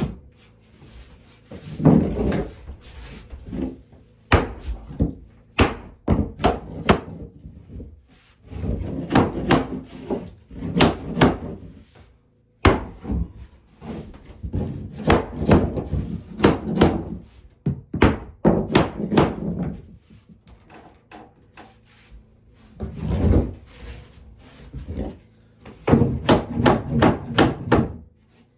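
Wooden knocks and thuds in irregular clusters, with quieter rubbing between them: pieces of wood being handled and knocked together during cabinet and interior woodwork.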